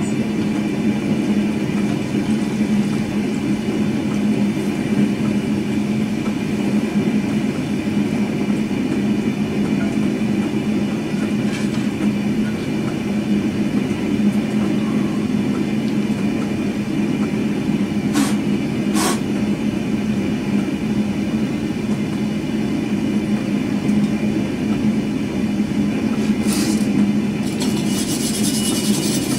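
Gas forge burner running with a steady rush, with a few short knocks about eighteen, nineteen and twenty-six seconds in.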